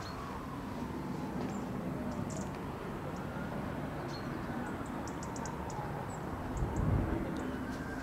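Outdoor ambience: a steady low rumble that swells briefly near the end, with small birds chirping in short, high notes.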